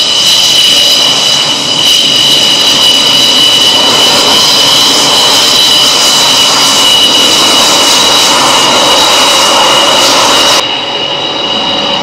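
Twin RD-33 turbofans of a MiG-29 running at taxi power: a loud, steady jet whine, two high steady tones over a rushing hiss. About ten and a half seconds in the hiss drops away and the sound gets quieter, while the whine carries on.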